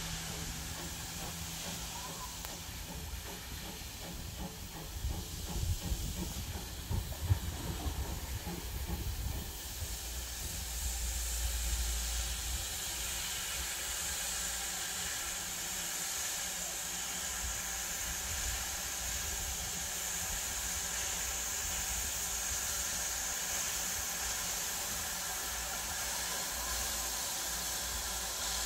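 Steam hissing from the LB&SCR Terrier 0-6-0 tank engine Knowle as it approaches, a steady high hiss that sets in about a third of the way through and keeps on. Some low, irregular thumps come before it.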